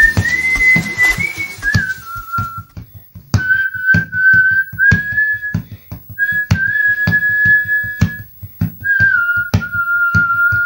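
A man whistling a slow tune through pursed lips, long held notes that slide between a few pitches, over an uneven rhythm of knocks.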